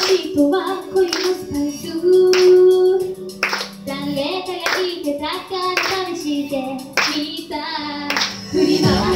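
Two women singing a J-pop song live into microphones over a backing track, with hand claps keeping the beat. The low end of the backing drops out about halfway and comes back near the end.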